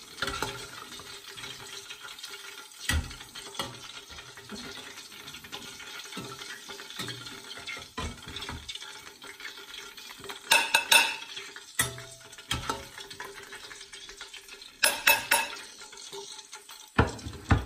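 Kitchen utensils stirring and scraping in a pan and clinking against dishes, with quick runs of clattering about ten seconds in and again around fifteen seconds, and a single knock near the end.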